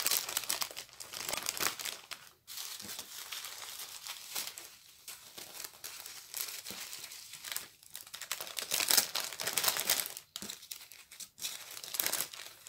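Packaging of a diamond painting kit crinkling and rustling on and off as it is handled and unwrapped.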